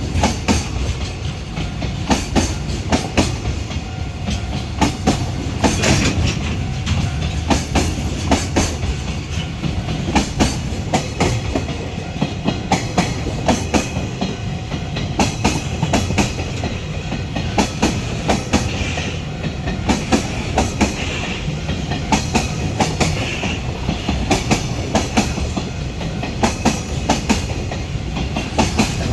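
Container freight train hauled by an EH500 electric locomotive passing close by, with a steady rumble and its wheels clacking in quick groups over the rail joints.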